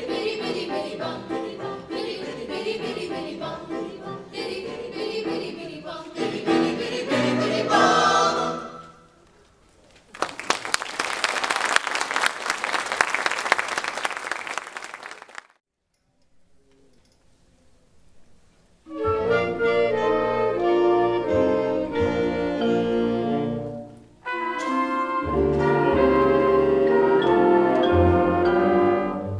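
High school choir singing a holiday piece to its close. About five seconds of audience applause follows, then a short hush. A concert band starts playing, stops briefly, and starts again.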